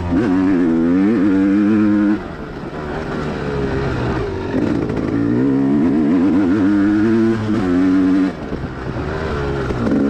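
Four-stroke dirt bike engine revving hard under throttle, its pitch wavering up and down. The throttle is cut about two seconds in and again about eight seconds in, and the engine builds again after each.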